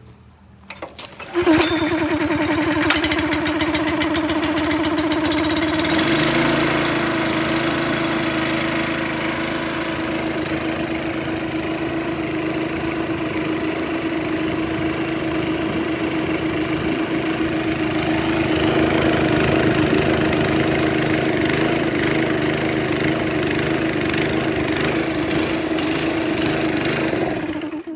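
Honda gasoline engine on a Ridgid 15-gallon portable air compressor starting about a second in, then running steadily. Its low note shifts about six seconds in.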